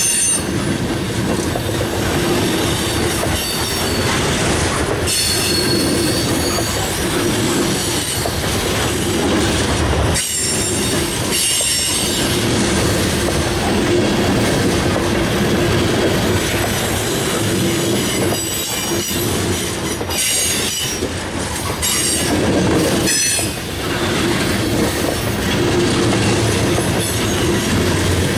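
Freight train of coal hopper cars rolling past: a steady rumble and clatter of wheels, with clacks as the trucks cross joints and high-pitched wheel squeal that comes and goes.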